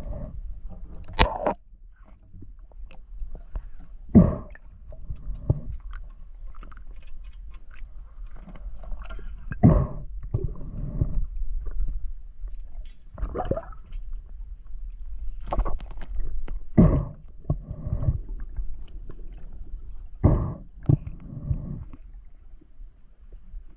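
Underwater handling noise: a steady low rumble with short knocks and scrapes every second or few, as a speared fish is held and worked on the spear shaft against the camera.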